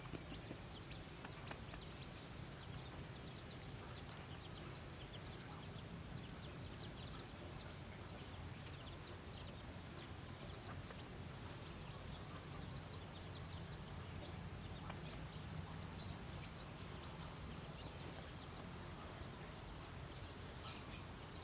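A rabbit chewing food, heard as many small crunching clicks over a steady low background hum.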